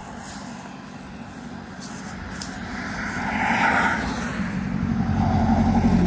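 A motor vehicle passing, its engine and road noise growing louder through the seconds and loudest in the second half.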